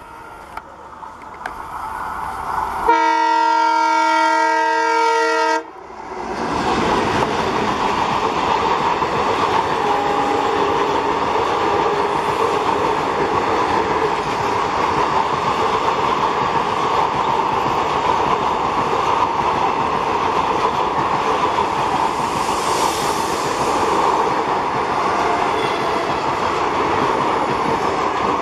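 Indian Railways diesel locomotive sounding its horn in one long chord-like blast about three seconds in, cutting off sharply near six seconds. After that the train runs by with a loud, steady rumble and wheel clatter on the rails.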